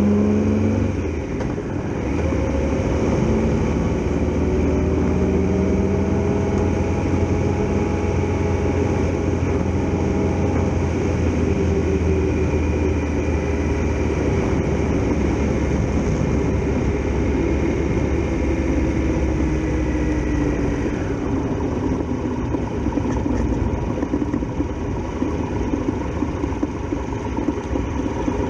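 Triumph Tiger Explorer XRx's three-cylinder engine running while the motorcycle rides along, its pitch rising and falling with the throttle. About three-quarters of the way through the engine note drops lower.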